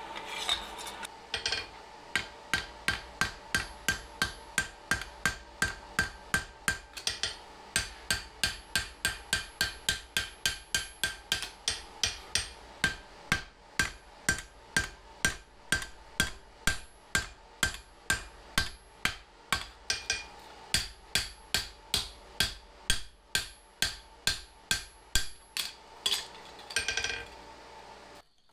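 Hand hammer striking hot leaf-spring steel on an anvil, drawing out a trowel blade, in steady blows about two a second with a brief ring after each. A steady hum runs underneath. The blows stop near the end.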